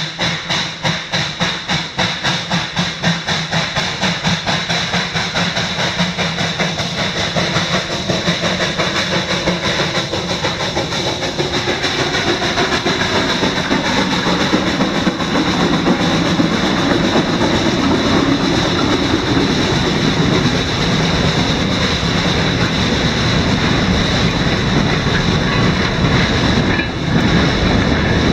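Climax No. 3 geared steam locomotive working past with fast, even exhaust chuffs, about four a second. The chuffs blur into a steady rolling noise as it goes by, and the train's cars follow, rumbling and clicking over the rail joints.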